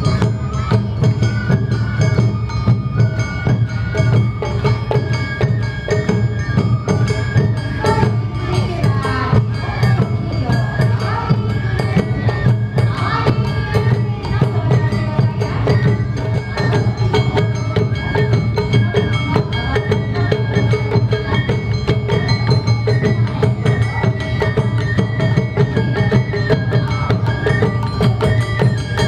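Awa Odori festival band (narimono) playing: bamboo shinobue flutes carry a stepped melody over shamisen, with steady drums and clacking percussion keeping the beat.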